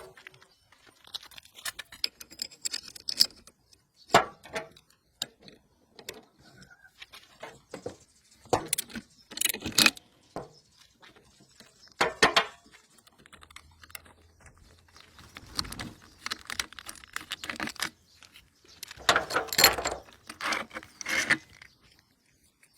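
Irregular metallic clinks and rattles of hand tools and small parts being handled. The clatter is loudest about ten seconds in and again near the end.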